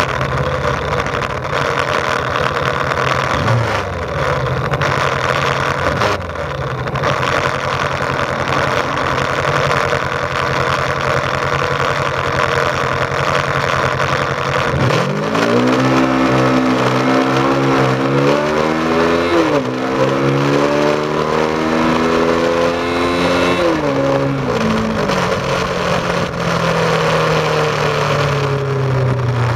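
Suzuki GS500E's air-cooled parallel-twin engine, fitted with an aftermarket exhaust, running at low revs with a couple of brief blips, then accelerating hard from a standstill about halfway in. The pitch climbs, drops at two gear changes about four seconds apart, then holds steadier as the bike reaches speed.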